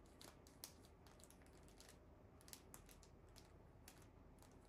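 Faint, irregular light ticks and scratches of a marker pen writing on a plastic zip-top bag.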